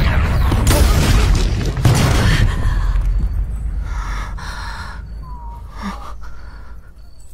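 Dramatic soundtrack effect: a deep rumbling boom with two sharp hits about one and two seconds in, dying away over several seconds. It gives way to faint, evenly spaced insect chirps, about one a second.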